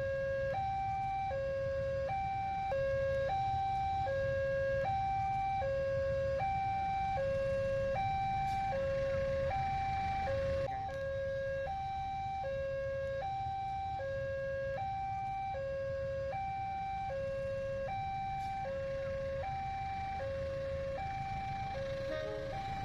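Railway level-crossing warning alarm from the horn loudspeaker on the crossing pole, sounding steadily as two alternating tones, each held for under a second. Beneath it is the low rumble of a diesel-hauled passenger train passing over the crossing.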